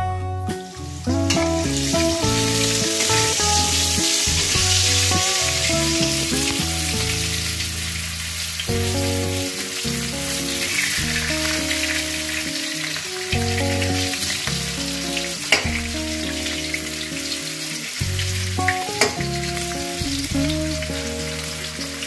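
Vegetables frying in hot oil in a kadai: a steady sizzle that starts about a second in, with a couple of sharp clicks in the second half. Background guitar music plays throughout.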